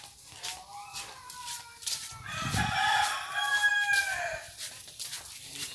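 A rooster crowing once: a long call that starts about two seconds in and lasts about two seconds.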